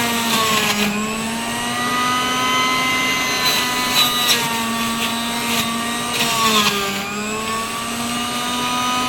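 Sujata juicer-mixer-grinder's electric motor running steadily with a high whine, its pitch dipping briefly under load about a second in and again around six to seven seconds in before picking back up.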